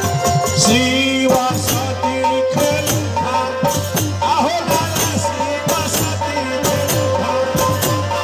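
Live dugola folk music: brass hand cymbals (jhaal) clashing in a steady rhythm over a held melody line.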